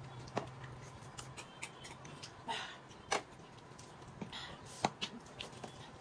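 Eating sounds: metal forks clicking and scraping through fried noodles on a foil-covered table, in scattered irregular clicks, with two short noisy mouth sounds of eating about two and a half and four and a half seconds in.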